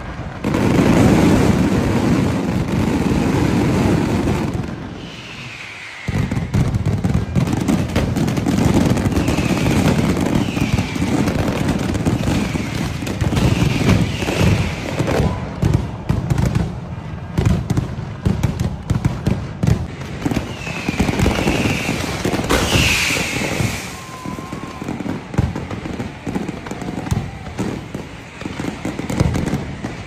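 Festival pyrotechnics firing off paper streamers and coloured smoke: a dense, continuous run of bangs and crackling that drops away briefly about five seconds in and then starts again, with short high falling whistles over it again and again.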